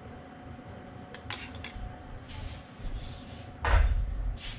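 Metal spoon and dishes clinking: a few light, quick clicks about a second in, then a louder knock near the end.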